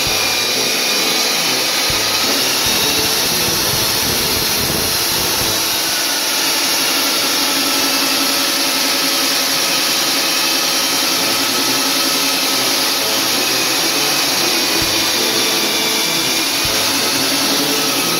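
Water-fed diamond core drill on a rack-mounted stand boring a hole through the floor, with a wet/dry shop vacuum running alongside to suck up the slurry of dirt and water. Both run steadily at a constant level throughout.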